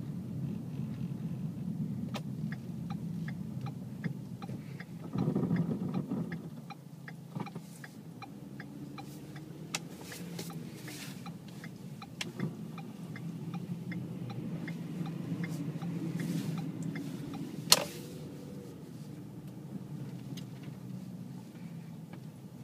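Inside the cabin of a 2012 Ford Fusion Sport, its 3.5-litre V6 and tyres hum steadily as the car drives slowly over snow, while the turn signal ticks. About five seconds in there is a louder rush, and near the end comes one sharp knock.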